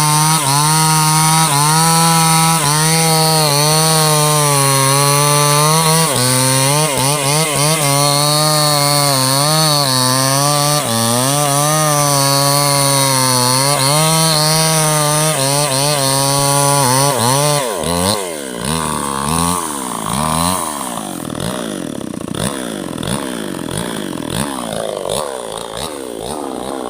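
Chainsaw cutting into a large teak trunk at high, steady engine speed, the note dipping now and then as the chain bites. About two-thirds of the way through, the engine drops to a lower, uneven speed that rises and falls.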